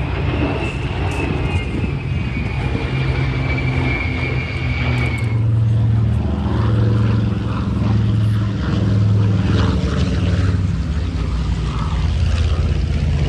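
Propeller airplane engine droning steadily, its level swelling and easing. A high whine sinks slightly in pitch and cuts off about five seconds in.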